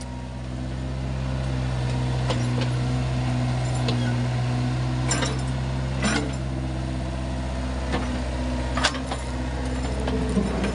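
Kobelco mini excavator's diesel engine running steadily under load, climbing in level over the first two seconds as it digs hard, rocky soil. About six sharp knocks come through, the bucket striking rock and stones.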